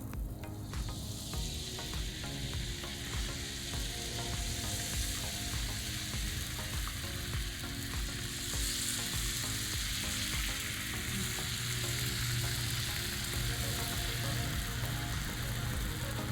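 Beaten eggs sizzling on a hot Blackstone flat-top griddle: a steady frying hiss that comes in about a second in and holds.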